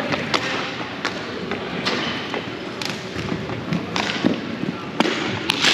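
Irregular sharp thuds and knocks from play during a team game, roughly one a second, over a steady background murmur.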